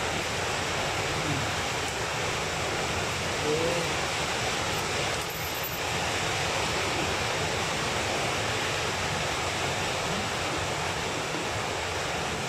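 Steady rushing noise of an electric stand fan's airflow, an even hiss that does not change.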